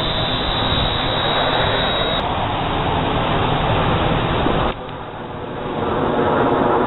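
Formation of USAF Thunderbirds F-16 fighter jets passing overhead, a loud steady jet rush. About two-thirds of the way through it drops off abruptly, then swells again.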